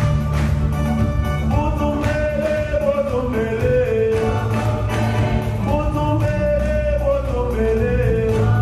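Mixed choir of men and women singing with microphones, backed by hand drums and a low bass line, the drums keeping a steady beat under the sung melody.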